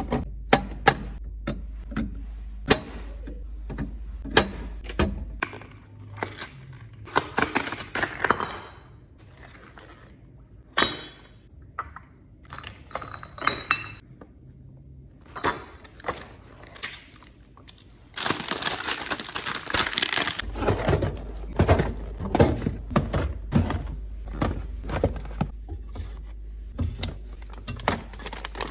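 Items such as jars, bottles and plastic containers being set down and arranged while a fridge is stocked: a run of irregular knocks, clicks and short glassy clinks, with a couple of seconds of steady rustling noise about eighteen seconds in.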